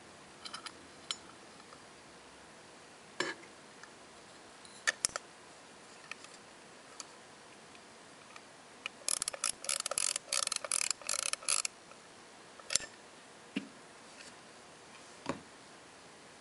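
Antique pocket watch being handled, with scattered sharp metal clicks from its case and crown. About nine seconds in comes a quick run of a dozen or so clicks lasting a couple of seconds.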